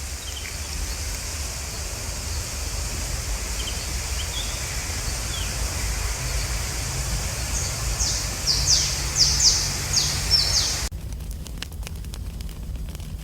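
Steady rushing river-and-wind ambience with birds chirping. A run of loud, quick falling chirps comes about eight seconds in. Near the end it cuts suddenly to a campfire crackling.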